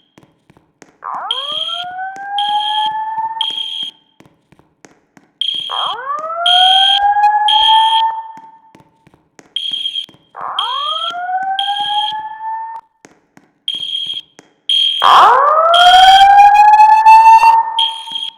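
Fire alarm voice-evacuation system sounding its alarm tone between spoken messages. A rising whoop sweeps up over two to three seconds, four times, over a high-pitched beep pulsing in sets of three. The last whoop is the loudest.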